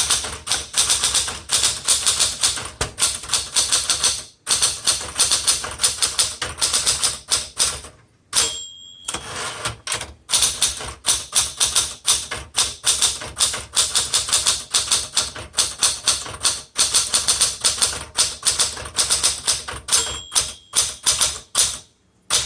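1968 Smith Corona Super Sterling manual typewriter typed on fast, the keys striking in a rapid clatter. Its margin bell rings briefly twice, about eight seconds in and near the end, with a short pause in the typing after the first ring.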